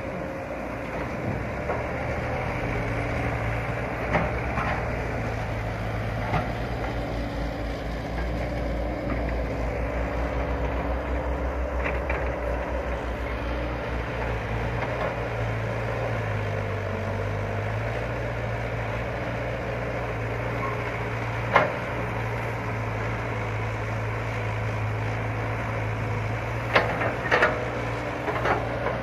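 Caterpillar 312B excavator's diesel engine running steadily under working load, its pitch shifting now and then as the boom and bucket are worked, with a few sharp metal clanks near the end.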